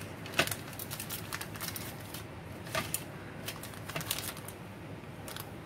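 Aluminium foil crinkling as it is pressed and folded by hand over the rim of a cup, an irregular run of small crackles and clicks.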